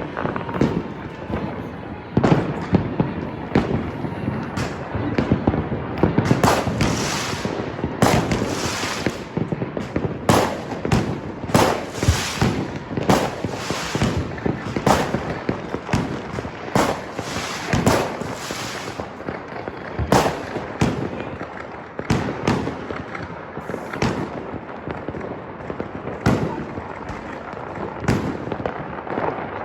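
Many fireworks and firecrackers going off at once in a dense, unbroken barrage of overlapping bangs and crackles, busiest in the middle.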